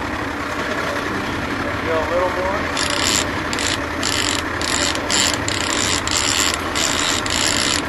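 Fishing reel ratcheting in quick bursts with short gaps, starting about three seconds in, as a fish is fought on a bent trolling rod. A low steady hum from the boat runs underneath.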